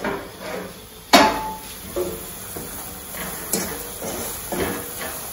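A spatula stirring and scraping a thick coconut-and-sugar mixture in a steel pan. A sharp knock against the pan about a second in, then a few lighter knocks and scrapes roughly once a second.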